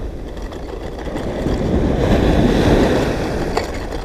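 Ocean surf washing in around the legs, a wave's rush swelling to its loudest about two seconds in and easing off, with wind buffeting the microphone. A light click near the end.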